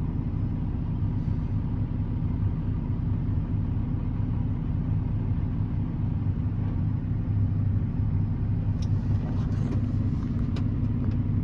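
Tractor engine running steadily with a low rumble, with a few light clicks or rattles about nine to ten and a half seconds in.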